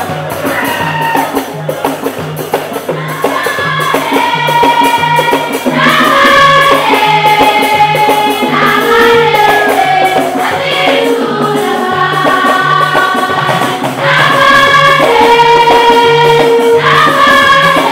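Church choir singing a gospel song in parts, over a steady low bass pulse about twice a second and a rattle keeping time. The singing grows louder about six seconds in.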